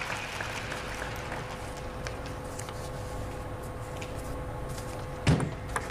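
Quiet table tennis hall ambience with a faint steady hum while a player settles to serve. About five seconds in comes one sudden loud thump as the serve is made.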